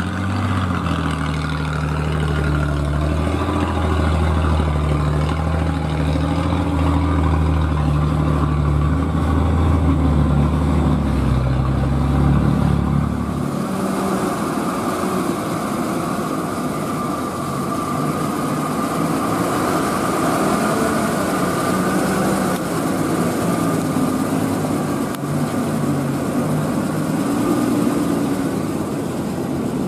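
Old loaded Toyota dump truck engine running close by, a steady deep hum. About thirteen seconds in it changes abruptly to a second old Toyota dump truck driving on a gravel road, its engine noise mixed with a rougher hiss.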